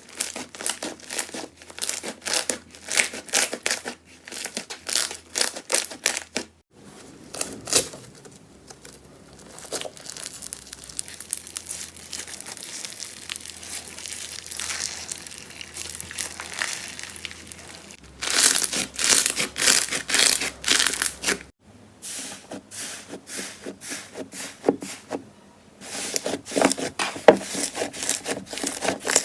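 Slime being squeezed, poked and stretched by hand, making dense runs of sharp crackles and pops, with a softer, quieter squishing stretch in the middle. The sound changes abruptly several times as one short clip cuts to the next.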